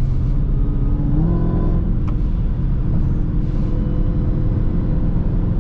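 Dodge Charger Hellcat's supercharged 6.2-litre V8 running at highway speed, heard from inside the cabin. Its note steps up slightly about a second in and then holds steady, over tyre noise on a wet road.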